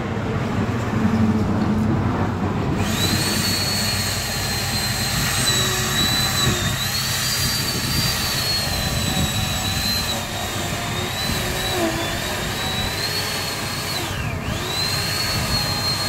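Two-stroke chainsaw running at high revs, a high whine that starts about three seconds in and wavers as the saw works through the spruce trunk. The pitch dips sharply about fourteen seconds in, as under load, then comes back up.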